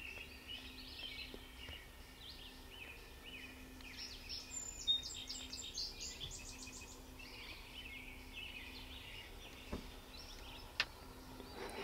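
Morning chorus of songbirds chirping and singing, busiest around the middle, over a faint steady low hum, with two sharp clicks near the end.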